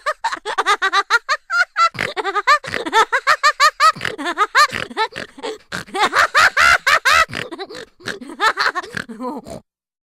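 Laughing sound effect: high-pitched, rapid cackling laughter in quick pulses, several a second, that cuts off abruptly near the end.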